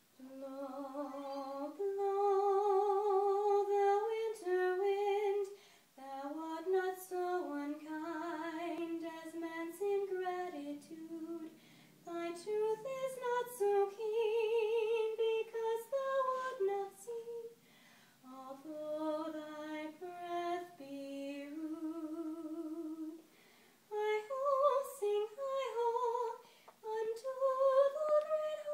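A woman singing solo with vibrato, holding long notes in slow phrases broken by short pauses for breath.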